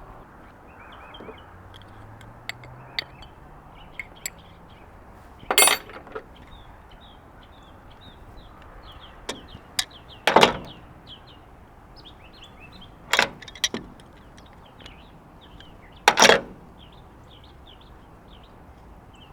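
Four loud, sharp knocks or clanks a few seconds apart, with a few fainter clicks between, over birds chirping.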